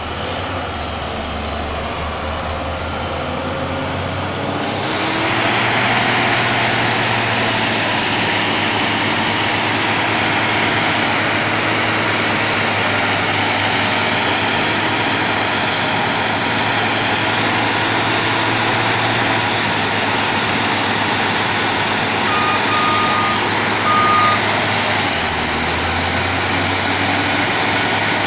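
Large farm tractor diesel engine running, rising to high revs about five seconds in and staying there. Short high electronic beeps sound a few times near the end.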